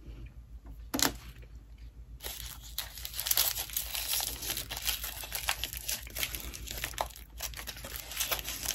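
Chocolate wrapper crinkling and tearing as it is handled and unwrapped: one sharp crackle about a second in, then steady crinkling from about two seconds in until near the end.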